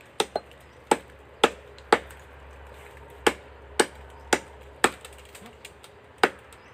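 Small axe chopping into a standing tree trunk: sharp, regular strikes about half a second apart, in short runs of four or five with brief pauses between.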